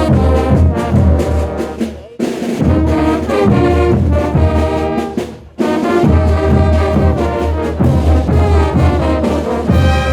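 Bolivian brass band playing a carnival tune, with trumpets and trombones over a heavy low end. The music drops out briefly twice, about 2 seconds in and again near the middle.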